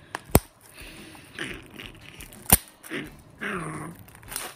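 Fingers picking at the shrink wrap on a plastic Blu-ray case, with two sharp clicks about two seconds apart. Short wordless vocal sounds come between and after them.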